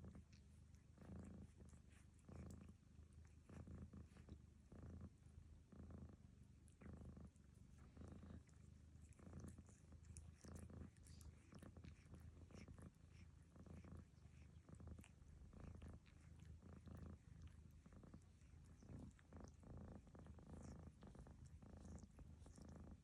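A cat snoring faintly in a steady rhythm, about one breath a second, while another cat licks its fur with faint ticking sounds.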